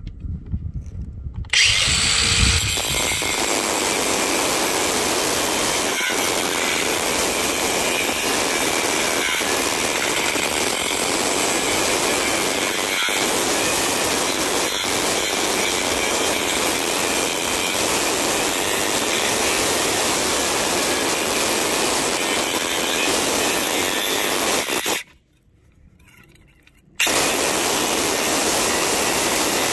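Ryobi cordless angle grinder cutting into a concrete block: a steady, loud grinding that begins about a second and a half in, cuts off for about two seconds near the end, then starts again.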